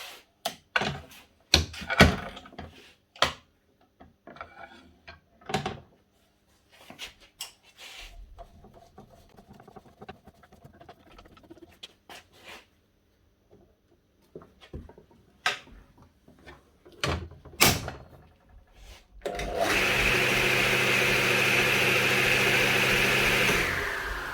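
Scattered clicks and knocks of handling, then about 19 seconds in the DeWalt DW743 flip-over saw's motor starts at once and runs steadily at full speed for about four seconds before being switched off and winding down. It starts and runs instead of just humming, the sign that its start capacitor is working.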